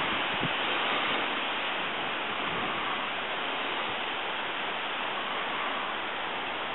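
Steady rushing hiss of wind through the trees and grass, with no gusting on the microphone.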